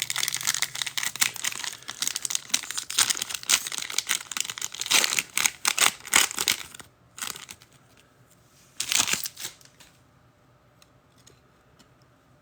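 Foil trading-card pack wrapper being torn open and crinkled by hand, a dense crackling rustle for about seven seconds, then a short crinkle again about two seconds later.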